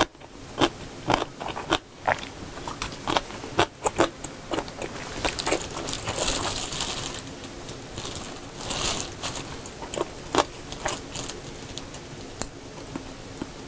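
Close-miked eating sounds: chewing of gimbap, with many sharp clicks of wooden chopsticks against the plate, and crinkling of a thin plastic glove around the middle.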